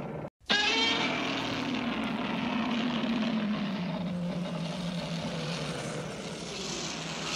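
Dubbed-in monster roar sound effect: a loud, long cry that starts about half a second in, sliding slowly down in pitch over a rough, noisy rumble.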